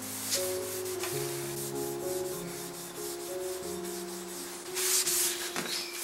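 A cloth rag rubbing wood stain onto bare wood: a soft scrubbing hiss that swells briefly near the end. Background music with sustained notes plays underneath.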